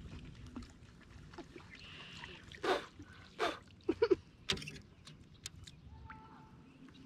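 A few short splashes of water around a small canoe, then a sharp knock against the hull about four and a half seconds in.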